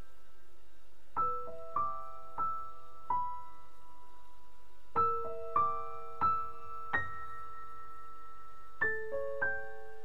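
Background music: slow solo piano, single notes struck in short groups of three or four with pauses between, each note left ringing.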